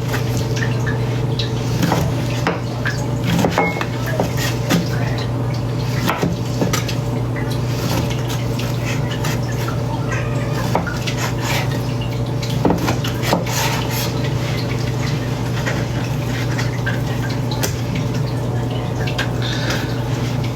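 Knife chopping sliced ham on a cutting board: irregular knocks and clicks, over a steady low hum.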